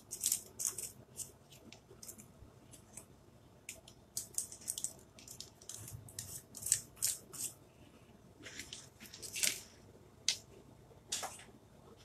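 Wooden craft stick scraping thick chalk paste off the lid and rim of a paste jar in short, irregular scrapes.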